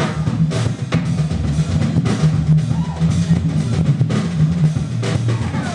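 Live organ-trio jazz: a drum kit with bass drum and snare keeping a steady groove under sustained low organ notes.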